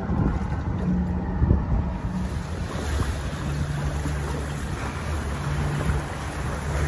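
25-foot Dorado bay boat under way, its 400 Mercury outboard humming steadily beneath the rush of spray off the hull and wind buffeting the microphone.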